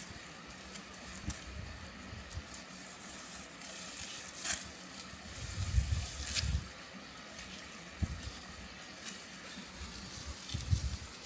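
Rice plants rustling and crackling as they are handled in the field, with scattered sharp crackles and a few low dull thumps.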